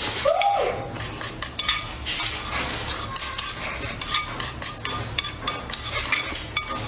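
Chopsticks repeatedly clicking and scraping against a ceramic bowl as the last of the fried rice is shoveled into the mouth, with many quick taps throughout.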